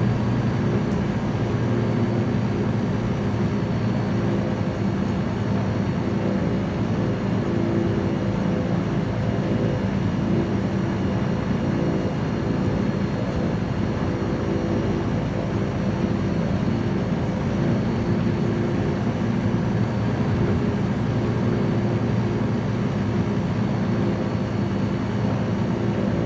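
Small light aircraft's piston engine and propeller running steadily in flight, an even drone that holds the same pitch and level throughout.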